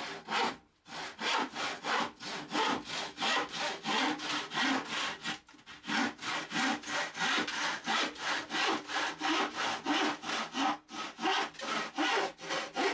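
Rusty old crosscut panel saw cutting by hand through a pallet board: a steady run of rasping push-and-pull strokes, about three a second, with brief breaks near the start and about five seconds in.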